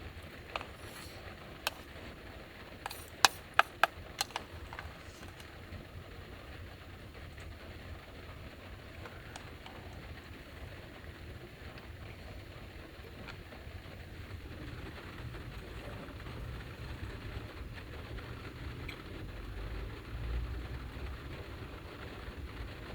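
Steady storm noise of rain and wind against a kei van's body, heard from inside the cabin, with a deeper rumble swelling past the middle as a gust builds. A couple of single sharp clicks come early, then a quick run of about six clicks around three to four seconds in.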